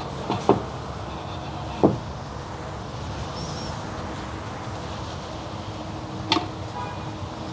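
Steady background noise with a few light knocks and clicks from tools and parts being handled: one soon after the start, one near two seconds in, and one sharper click near the end.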